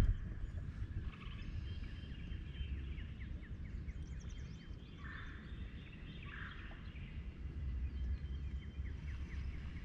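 Wind rumbling on the microphone, with birds calling in quick repeated chirps throughout.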